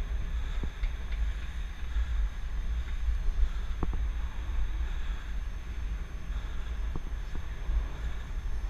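Wind buffeting the microphone of a helmet-mounted camera while cycling: a steady low rumble, with a few short knocks, the loudest about four seconds in.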